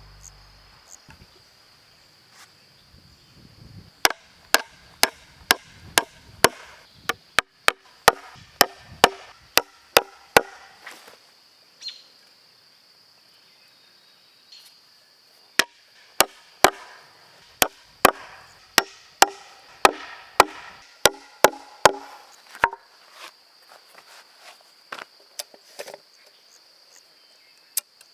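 Hammer driving nails into pine boards: two runs of steady blows, about two strikes a second, each blow with a short ring, separated by a pause of a few seconds.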